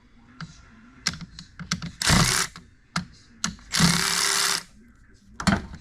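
A small power tool undoing the battery terminal nut: a few sharp clicks and knocks, and two short bursts of the tool running, each under a second, about two and four seconds in.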